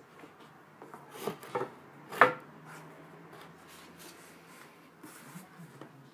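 Long wooden rod handled on a hard floor: a few light wooden knocks and scrapes, with one sharp knock about two seconds in and a few faint ticks near the end.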